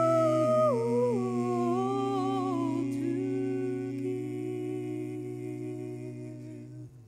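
Three voices of an a cappella jazz trio, one male and two female, hold a wordless closing chord. The top voice steps down twice in the first second or so while the low male note stays steady. The chord then slowly fades and stops just before the end.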